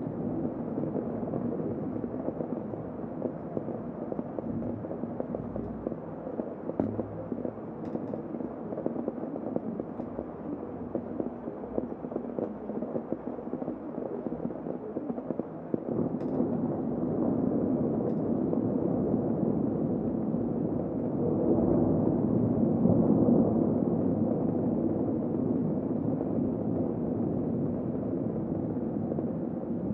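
Heavy rain heard from inside a room as a steady, muffled rush, swelling louder about halfway through, with a few faint ticks.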